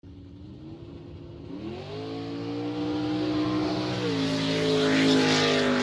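Car engine running, then revving up about a second and a half in and growing steadily louder, with a rushing hiss that swells near the end.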